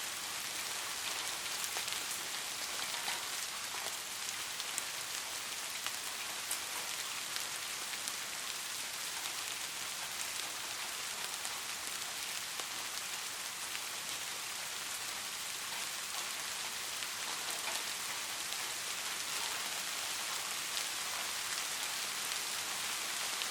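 Steady rain falling on a surface, an even hiss with scattered fine drop ticks.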